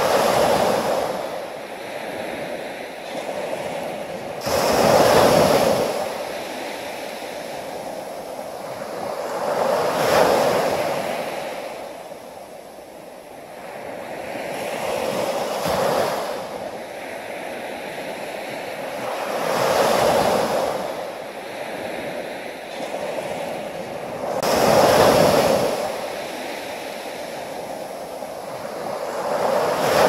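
Ocean surf: waves break and wash ashore in a steady hiss of water, swelling up about every five seconds.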